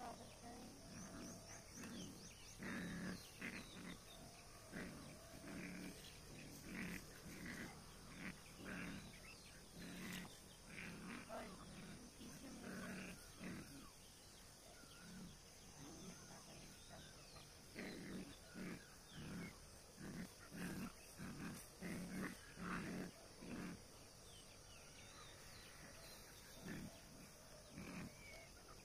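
Dogs giving short, repeated vocal sounds in clusters, with pauses between them, while a puppy and an adult dog play-fight.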